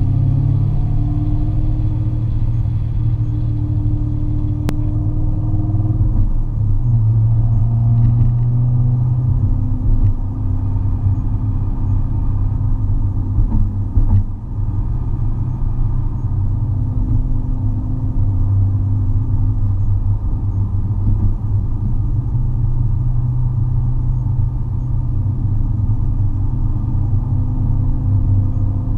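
A Chevrolet Camaro being driven, with a steady low engine and road rumble. A few faint, sharp clicks come through in the first half. The clicking is a suspension noise that comes only on left turns.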